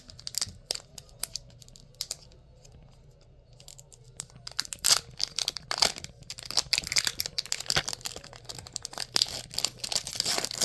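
Foil wrapper of a Pokémon TCG Mega Evolution booster pack being torn open and crinkled: a run of sharp crackles that thins out for a couple of seconds, then grows busier and louder about halfway through.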